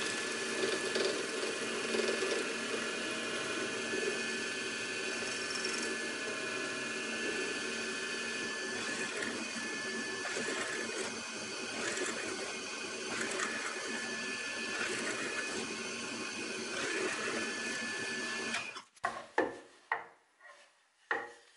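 Benchtop hollow-chisel mortiser running steadily, its square chisel and auger cutting a mortise in a wooden leg. The motor stops near the end, followed by a few short sharp knocks.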